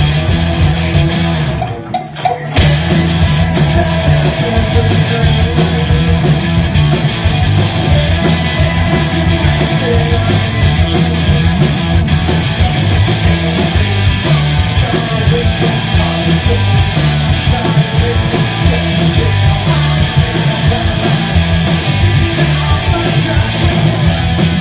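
Live punk rock band playing loud, with electric guitars, bass guitar and drums. The band cuts out for a moment about two seconds in, then comes straight back in.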